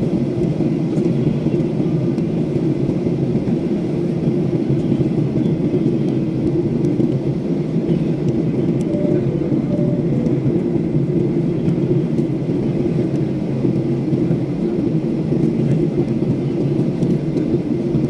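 Steady low rumble of jet engines and airflow inside an airliner cabin in flight.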